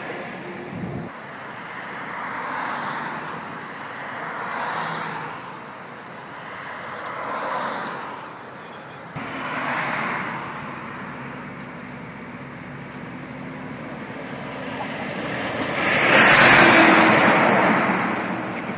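Highway traffic passing: vehicles rush by one after another, each swelling and fading over a couple of seconds, with the loudest passing close about three-quarters of the way through.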